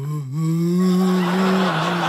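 A man's voice holding one long, ghostly "oooh" moan into a telephone, part of a joke about calls from beyond the grave, with audience laughter rising under it.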